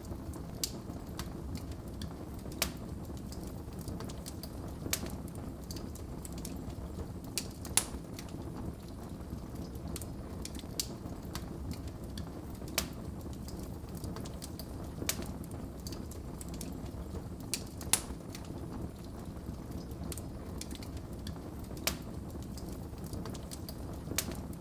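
Wood fire burning in a fireplace: a steady low rumble of flames with sharp, irregular crackles and pops from the logs every second or so, a few of them louder.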